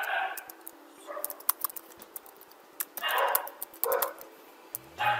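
Computer keyboard typing, a run of quick key clicks. A dog barks several times over it: once at the start, twice around three to four seconds in, and again near the end.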